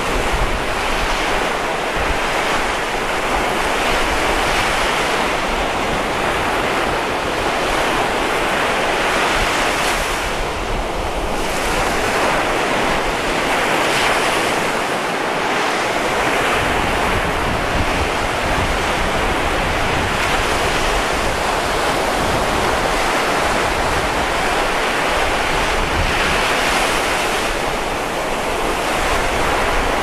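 Sea surf: waves breaking close to shore and washing back in a continuous, rushing wash that swells and eases gently.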